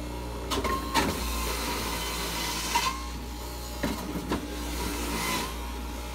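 Jack LaLanne Power Juicer, a centrifugal juicer, running steadily while pieces of fruit and vegetables are pushed down its chute, grinding loudly several times as each piece hits the spinning cutter.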